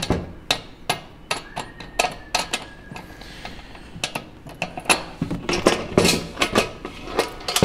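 Metal clicks and clinks as the wing nuts on a brass ship light's caged glass cover are undone by hand and the cover's metal frame is lifted off the brass body. The sharp taps come irregularly throughout.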